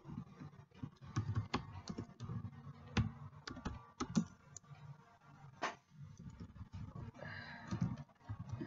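Typing on a computer keyboard: slow, irregular single key clicks as a word is typed out letter by letter.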